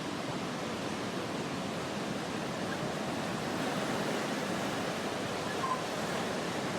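Ocean surf washing steadily on the beach, a continuous even rush that swells slightly midway.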